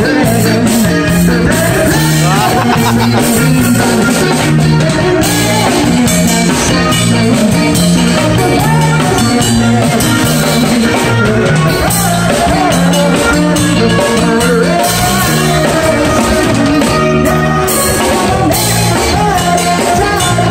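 Live band playing: electric bass guitar, drum kit and keyboard, with vocals over the top, loud and steady throughout.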